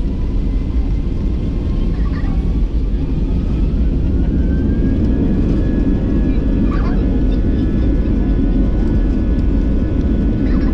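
Inside the cabin of an Airbus A320-200 at takeoff: the jet engines' steady low rumble, with a whine that rises in pitch over a few seconds and then holds as the engines spool up.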